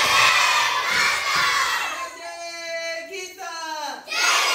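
A large group of children shouting a line of a Sanskrit song together, with a sung line between about two and three and a half seconds in; the group shouts again near the end.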